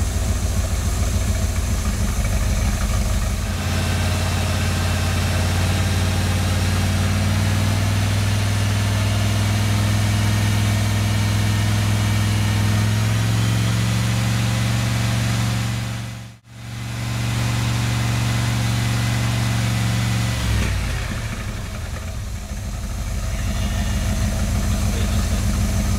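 1969 Corvette's 350 Chevy small-block V8 running at idle, then held at a raised, steady speed for about seventeen seconds before dropping back to idle; the raised speed is the 2,500–3,000 rpm at which total advance timing is checked. The sound cuts out for an instant during the high-speed stretch.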